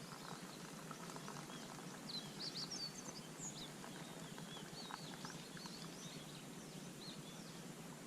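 Small birds chirping and twittering in quick, high, rising and falling calls from about two seconds in, over faint steady outdoor background noise with a few soft clicks.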